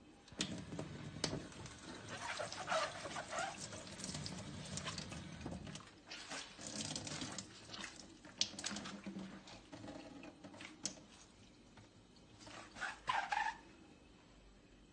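Water running from a kitchen tap onto a glove in a stainless steel sink, splashing and clattering as the glove is wetted. A few short whines come in about three seconds in and again near the end.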